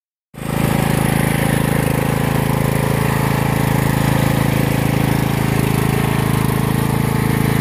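Tracked all-terrain wheelchair's drive motor running steadily as the chair crawls through deep mud, a constant low mechanical hum.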